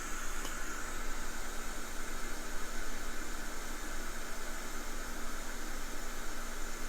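Steady, even hiss with a faint low hum underneath, unchanging throughout: the background noise of the electronics workbench.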